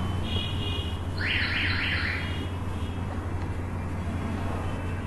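Steady low electrical hum of room tone. A quick run of four high chirps comes about a second in, after fainter high whistling tones just before them.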